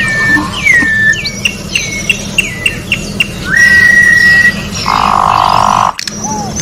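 Campo troupial (corrupião) singing loud clear whistles: a downslurred note, a quick run of short downslurred notes, then a long held whistle. Near the end a loud harsh buzzy sound lasts about a second and cuts off abruptly.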